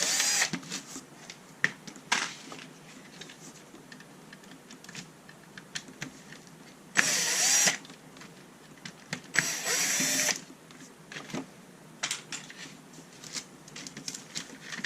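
Powered screwdriver running in three short bursts, at the start, about seven seconds in and about nine and a half seconds in, backing screws out of a Tamiya TA-02 RC car chassis. Light clicks and knocks of small plastic parts being handled come between the bursts.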